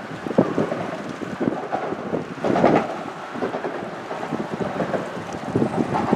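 Wind gusting across the microphone over choppy water lapping and slapping against concrete pier pilings, an uneven rush with irregular surges.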